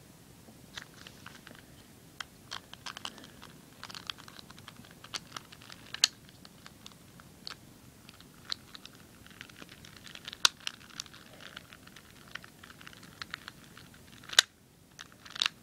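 Plastic pieces of a disassembled 2x2 speed cube clicking against each other as they are handled, in irregular sharp clicks, with a louder click near the end.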